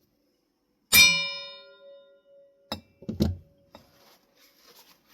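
A metal part is struck once about a second in and rings with a clear metallic tone that fades over about a second, followed by a few duller knocks around three seconds in: metal ceiling-fan parts knocking together during reassembly.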